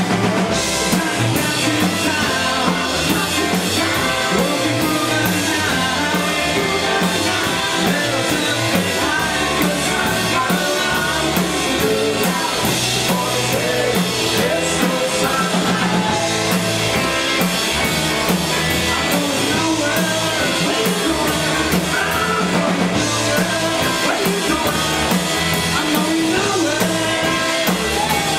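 Power-pop band playing live: electric guitars and a drum kit driving a steady rock beat, with a man singing lead over them.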